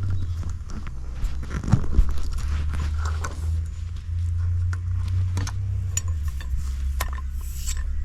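Scattered clicks, knocks and light metal clinks from hand tools and parts as a commercial floor scrubber is taken apart, over a steady low rumble.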